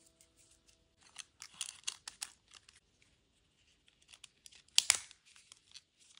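Plastic housing parts of a Nokia 6100 phone being handled and fitted together: scraping and rattling for about a second and a half, then two sharp clicks a little before five seconds in as a cover snaps into place.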